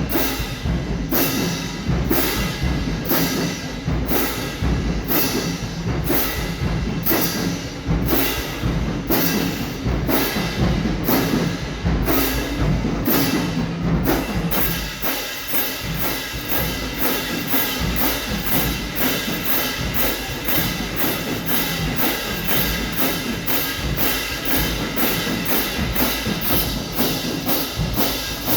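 Marching band playing, with drums and cymbals striking a steady beat over held notes from the horns. The hits come faster from about halfway through.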